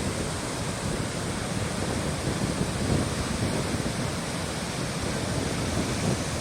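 Steady rushing of the flooded Doe River's floodwater, an even, unbroken wash of noise.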